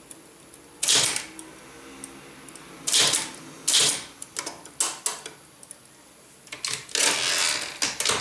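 Manual Tamil typewriter keys struck one at a time, a few sharp clacks about a second apart with lighter ones between. Near the end comes a quicker run of strikes and a longer rattling sweep as the carriage is returned for a new line.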